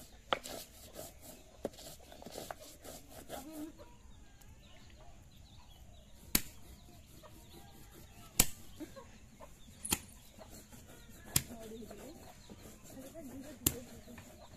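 A knife mincing dried red chillies on a wooden board in quick, light strokes, then a machete chopping goat legs on a wooden block: five single, sharp chops through bone, one every one and a half to two seconds.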